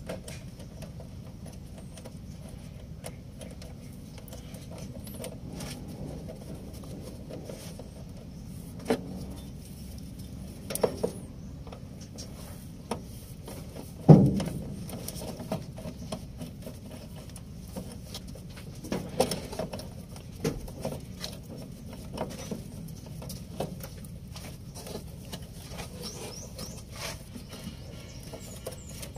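Ratchet and socket wrench working a terminal nut on a truck's battery relay: small metallic clicks and taps, with one louder metal knock about halfway through.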